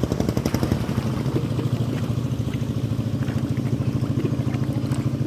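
A small engine running steadily at an even speed, with a fast regular beat.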